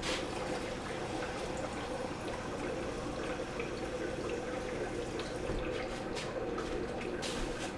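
Water trickling steadily, an even watery hiss with no breaks.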